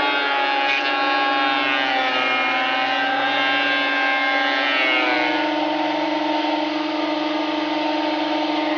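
Benchtop thickness planer running as it cuts a rough oak board. Its motor pitch sags a little while it cuts, then climbs back to a steady pitch about five seconds in as the board comes free.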